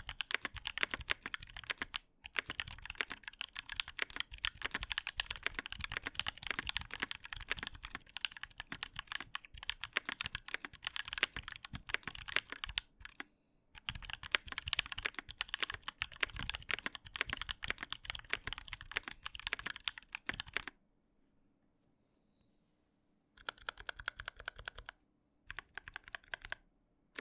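Mechanical keyboard with T1 switches lubed with Tribosys 3204, on an aluminium plate with ABS Cherry-profile keycaps, being typed on fast and continuously. There is a brief pause partway, a silent stretch of about two and a half seconds near the end, then two short bursts of typing.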